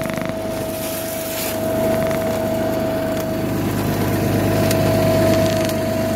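Truck-mounted salt spreader running: a steady motor whine over a low mechanical hum as it feeds rock salt.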